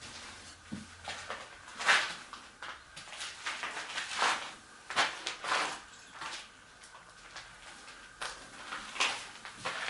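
Irregular footsteps and scuffs on a sandy stone floor, a few louder scrapes among them, the loudest about two seconds in.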